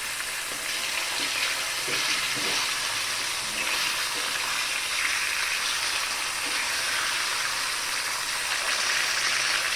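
Food frying in hot oil in a pan, a steady sizzling hiss.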